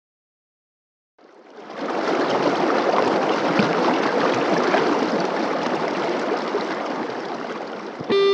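Shallow river water rushing over stones, fading in after about a second of silence. Guitar music starts just at the end.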